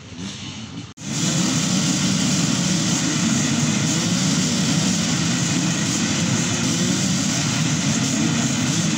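Off-road dirt-bike engines revving and running continuously, their pitches wavering and overlapping as several bikes ride the enduro course. The sound cuts in abruptly about a second in.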